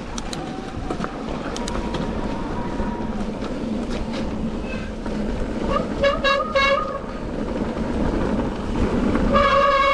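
Mountain bike disc brakes squealing under braking: a short squeal about six seconds in, then a loud, steady, high squeal from about nine seconds in, over the rush of tyres on gravel and wind. The brakes, squealing on a wet trail, are ones the rider says need a wake up.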